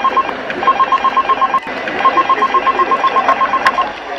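Rapid electronic beeping trill, about ten beeps a second, in bursts of one to two seconds with short gaps, over a steady hiss; it stops just before the end.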